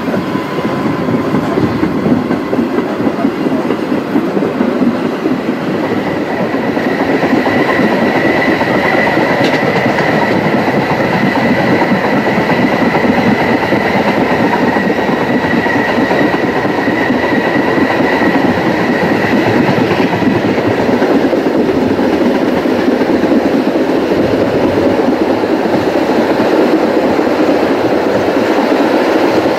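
Narrow-gauge steam train running: Rhaetian Railway G 4/5 steam locomotive working ahead and the carriages rolling over the rails, heard from an open carriage window. A steady high tone holds through the middle.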